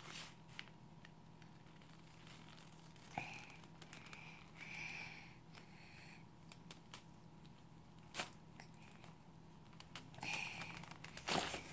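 Faint crinkling and rustling of plastic and cardboard toy packaging being handled, in short patches with scattered small clicks and a sharper click near the end.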